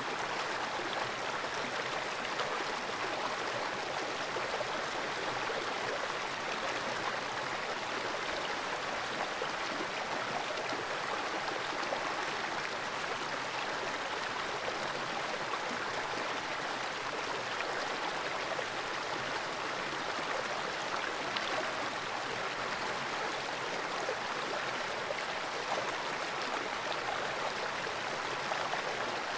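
Fast-flowing freshwater creek water rushing steadily: an even hiss of moving water with faint scattered ticks and crackles.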